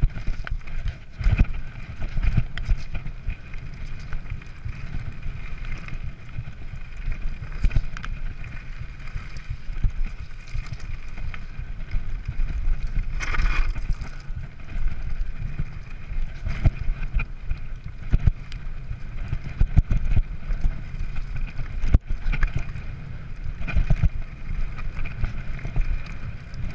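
Mountain bike riding down a rocky, gravelly trail: the tyres rumble over stones and the frame and parts rattle and knock at every bump, with some wind noise on the microphone.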